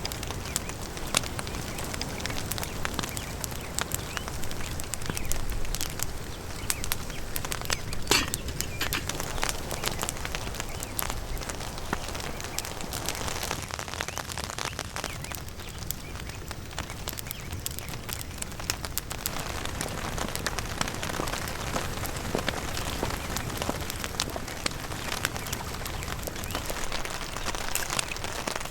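Wood fire crackling: frequent sharp pops and snaps over a steady hiss.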